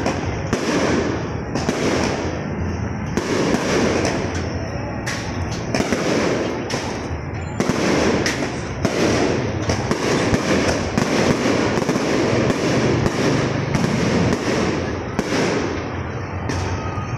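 Fireworks display going off without a pause: a rapid, dense run of bangs and crackles, one burst after another.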